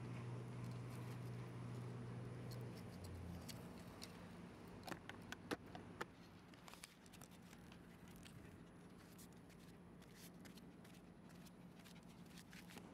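Shiba Inu puppy's claws tapping on stone paving tiles: a cluster of sharp clicks about five to six seconds in, then lighter scattered ticks. A low steady hum runs under the first three seconds.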